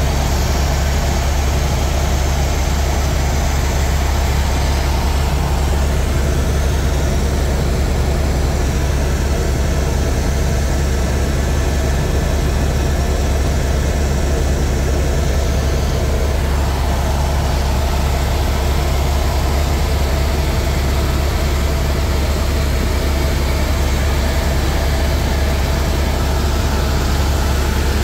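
Tour helicopter in flight: steady, loud engine and rotor noise with a strong low hum.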